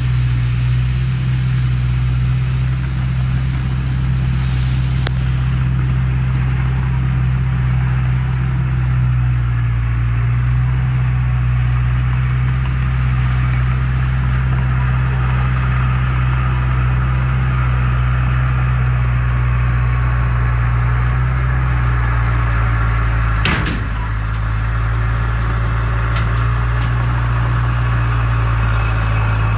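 Heavy diesel engine of earthmoving equipment running steadily with a strong low hum. A single sharp knock comes about three-quarters of the way through.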